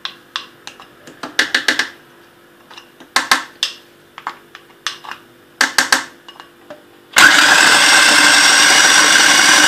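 A series of short clicks and knocks, then about seven seconds in an electric food processor starts suddenly and runs loud and steady for nearly three seconds, grinding Oreo cookies and butter into crumbs.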